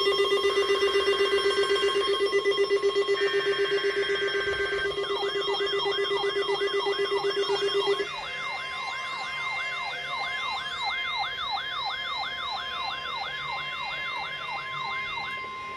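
NOAA Weather Radio's steady 1050 Hz warning alarm tone, sounding through weather radio receivers that are going off together. A lower pulsing tone drops out about halfway through. From about a third of the way in, a siren-like alert sweeps upward about three times a second until near the end.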